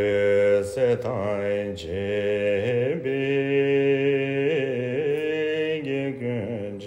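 A man's deep voice chanting a Tibetan Buddhist prayer in long, held notes that waver slowly in pitch, with a short pause for breath near the end.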